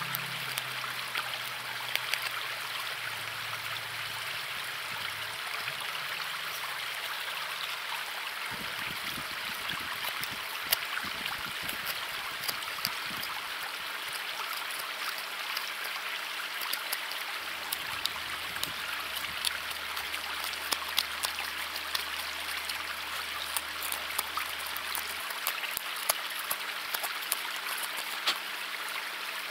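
River water rushing steadily over rocks, with scattered small clicks and faint low sustained tones underneath that shift a few times.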